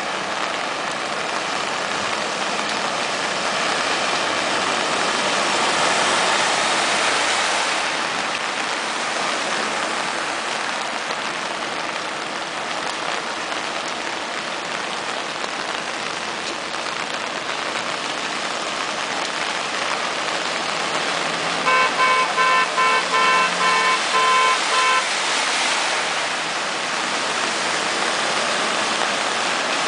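Cars and trucks driving through a flooded street, a steady wash of water spray and tyre noise that swells as vehicles pass close. About two-thirds of the way through, a car horn gives a rapid string of about ten short beeps over some three seconds.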